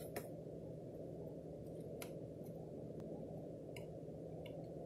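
A cardboard food box being handled: a few light clicks and taps of fingers on the cardboard, one near the start, one about two seconds in and a couple near the end, over a steady low background hum.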